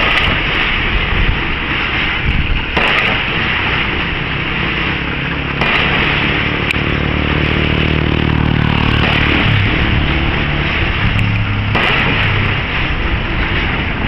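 Construction-site machinery: an engine running steadily under a loud rushing noise, its low hum coming through most clearly in the middle. The background changes abruptly a few times.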